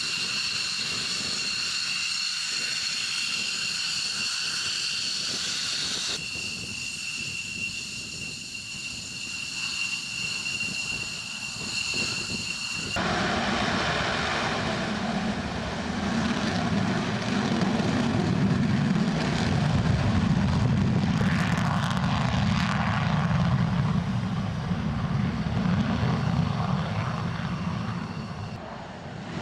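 Twin jet engines of F-15 fighters whining steadily at idle. About 13 seconds in, this gives way to the louder, low rushing noise of an F-15 at takeoff power on its takeoff roll.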